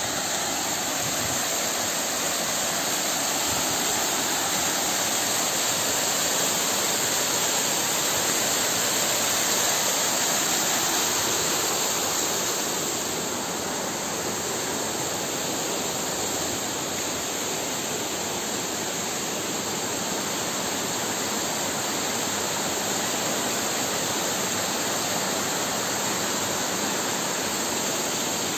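Small waterfall spilling down a rock face: a steady, even rush of water, a little quieter about halfway through.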